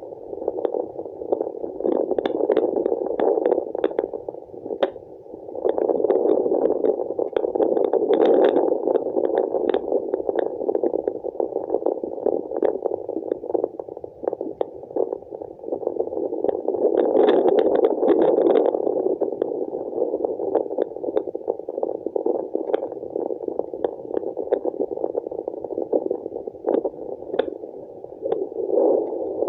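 Handheld fetal Doppler's speaker giving the whooshing placental blood-flow sound, a rushing hiss that grows louder and softer over several seconds, with scattered short clicks.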